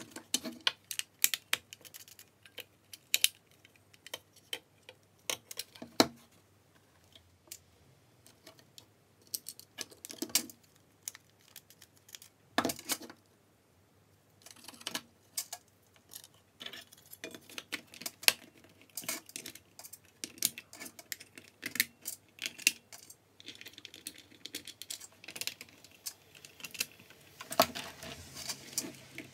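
Irregular sharp clicks and light knocks of a cordless drill's plastic parts being handled and fitted together: the trigger switch seated and the two halves of the plastic housing closed up.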